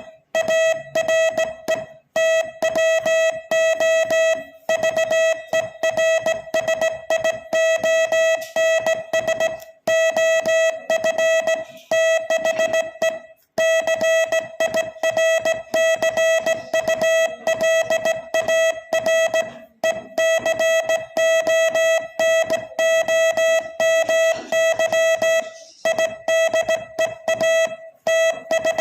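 Morse code sent as a single mid-pitched beep tone, keyed on and off in rapid dots and dashes at slightly above 20 words per minute, with a few short pauses between groups.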